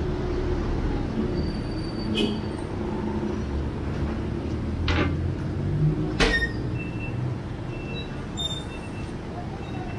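Street traffic: vehicle engines running with a steady low rumble, with a few short sharp knocks or clicks about two, five and six seconds in, the last the loudest.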